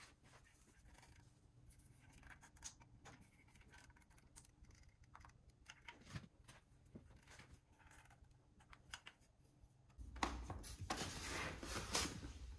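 Faint clicks and scratching as construction adhesive is squeezed from a cartridge onto foam insulation board, with a louder scraping, rustling stretch in the last couple of seconds.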